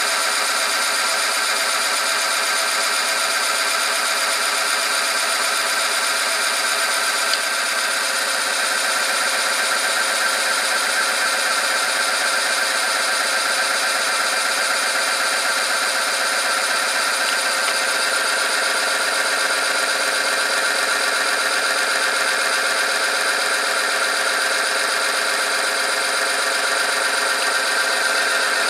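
Oil film strength test machine running under load: its electric motor spins a steel roller against the test sample bathed in engine oil heated to 100°C, giving a steady mechanical whine made of many tones. A higher tone in it grows a little stronger near the end.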